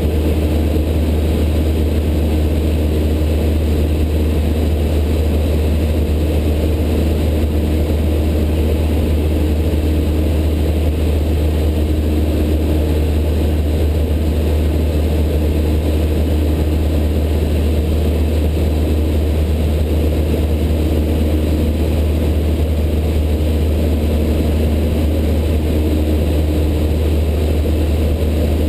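Light single-engine propeller plane's engine and propeller droning steadily in cruise, heard inside the cabin as a loud, even low drone.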